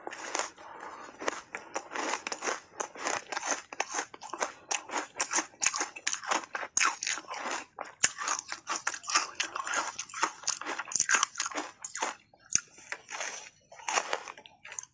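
Hard ice coated in matcha tea powder being bitten off in big bites and chewed, a dense run of sharp crunches with a short lull about 12 seconds in.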